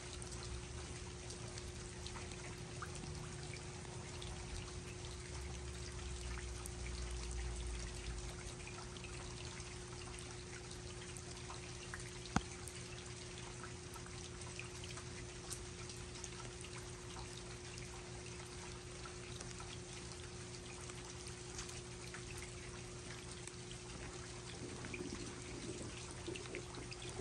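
Steady rain falling, with many small drip ticks over a faint steady hum. A single sharp click comes about twelve seconds in.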